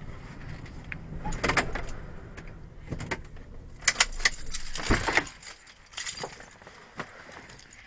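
Car engine running at idle, heard from inside the cabin, with clicks and a jangle of keys around four to five seconds in; the engine hum stops about five seconds in, as the engine is switched off and the driver's door is opened.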